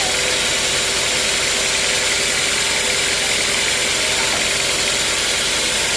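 Sawmill machinery running steadily: a constant mechanical hum with a high, even hiss and a few held tones, no change in load.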